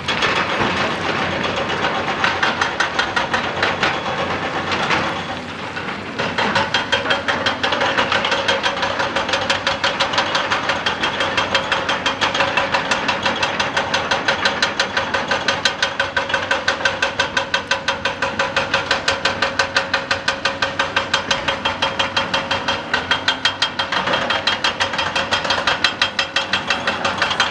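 Excavator-mounted hydraulic rock breaker hammering rock in rapid, even blows, several a second, over the excavator's running engine and hydraulics. It eases off briefly about five seconds in, then hammers on steadily.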